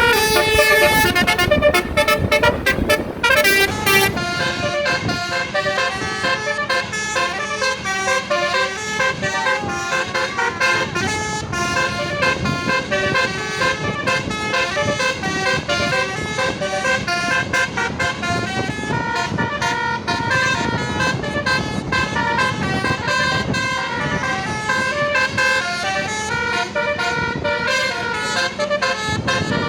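Telolet basuri musical bus horns playing a long, fast melody of short stepped notes, loud and without a break.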